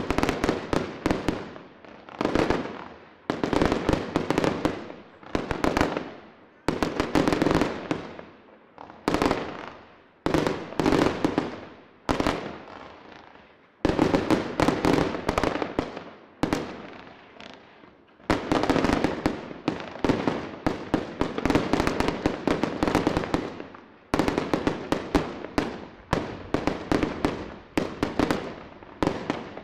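Fireworks display: waves of rapid, crackling reports from bursting shells, each wave fading away over a second or two before the next. The firing becomes a denser, almost unbroken barrage over the last ten seconds or so.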